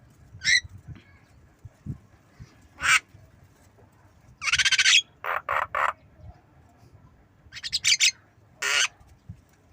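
Javan myna giving a scatter of short, harsh squawks and calls: single notes, a longer squawk about half a second long midway, three quick notes after it, and a fast chattering run near the end.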